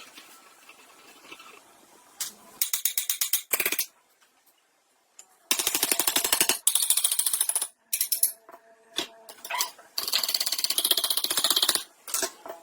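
Rapid mechanical rattling, a fast string of even impacts, in several short bursts with pauses between them; the longest burst comes about ten seconds in.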